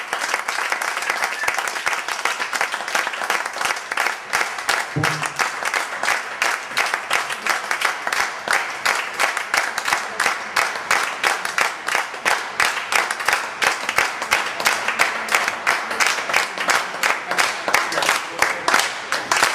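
Small audience applauding, with a short shout about five seconds in; the clapping settles into an even, rhythmic beat in the second half.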